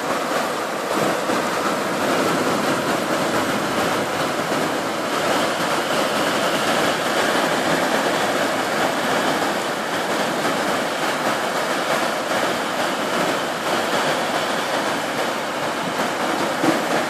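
Heavy torrential rain pouring down, a loud, steady, even hiss with no let-up.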